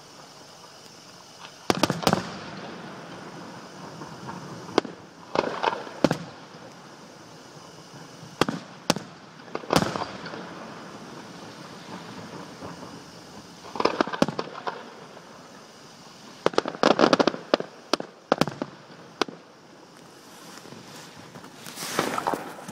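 Aerial fireworks bursting: sharp bangs every few seconds, many in quick rapid clusters, the loudest cluster about three quarters of the way through.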